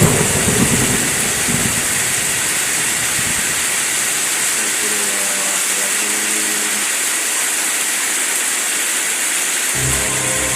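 Heavy rain and wind as a loud, steady hiss, with a low rumble of thunder in the first two seconds. A low hum comes in near the end.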